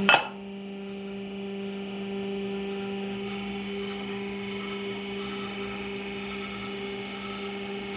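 Hydraulic press's pump motor humming steadily, a low hum with fainter higher whining tones over it, while the ram retracts from the crushed fruit. A single sharp crack right at the start.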